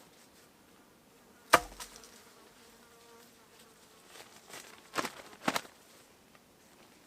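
A flying insect buzzing past, a faint steady hum lasting a second or two, among sharp knocks: the loudest about one and a half seconds in, then two more close together about five seconds in.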